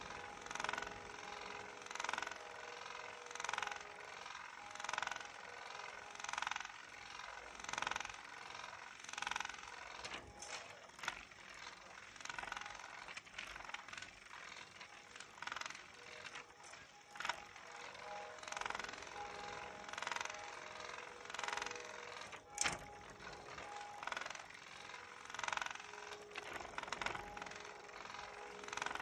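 Motorized spinning butterfly cat toy running, its small motor whirring steadily as the wire arm swings the butterfly round. A swell of noise comes about every one and a half seconds. A single sharp click sounds about two-thirds of the way through.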